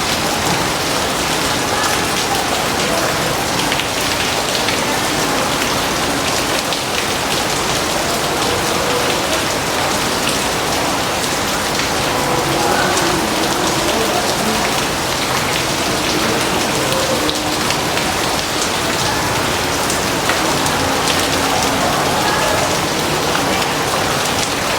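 Heavy rain falling steadily, a dense even hiss of countless drops hitting surfaces.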